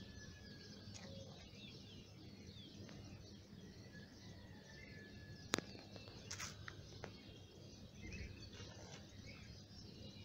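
Faint outdoor background of scattered bird chirps and calls over a low, steady background noise, with one sharp click about five and a half seconds in.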